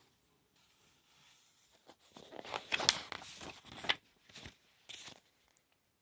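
A page of a large picture book being turned, the paper rustling and crinkling for about two seconds, with a few fainter paper sounds just after.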